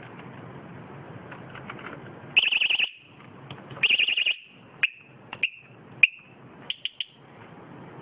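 Vibration-sensitive 110 dB bicycle alarm beeping as the frame is handled: two short bursts of rapid warbling beeps, then a few single beeps and three quick chirps near the end.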